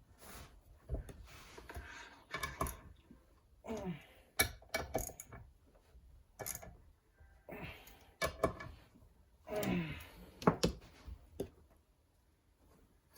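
Intermittent clicks, knocks and short scrapes of engine parts being handled and set down on a workbench during an engine rebuild, with quiet gaps between.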